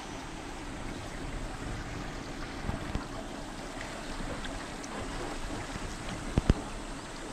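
Steady rush of a shallow, stony river with wind on the microphone. Two sharp knocks come close together about six seconds in.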